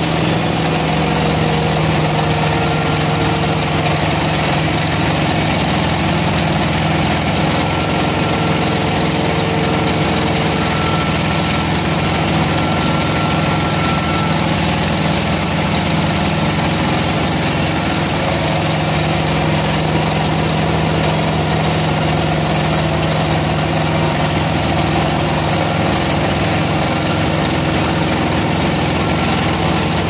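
Vertical band sawmill's blade running steadily through a large squared mahogany log, a constant cutting noise over a steady low motor hum.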